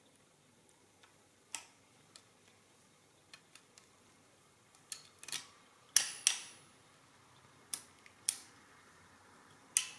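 EOS mechanical calculator's mechanism clicking as its hand crank is turned through a subtraction cycle, in the reverse direction. Irregular sharp metallic clicks and snaps, about a dozen, the loudest a pair about six seconds in.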